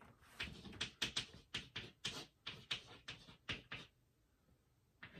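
Chalk writing on a chalkboard: about a dozen quick taps and short scratches as the strokes go down, pausing about four seconds in.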